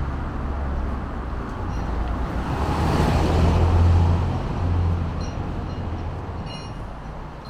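Street traffic: a motor vehicle passes, its engine rumble and tyre noise swelling to a peak about three seconds in and then fading away.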